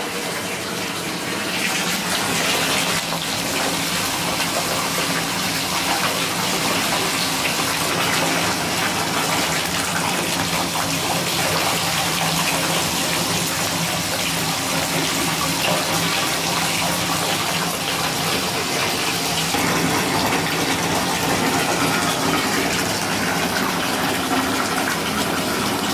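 Bathtub tap running full, water gushing steadily into a filling tub.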